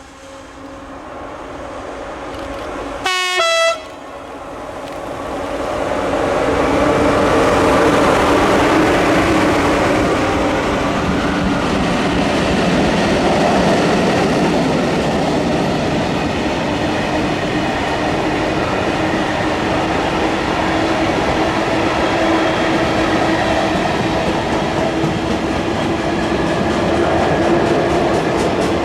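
A train sounds one short horn blast about three seconds in, then passes along the line, a loud steady rumble of wheels on rail with a faint steady hum through it.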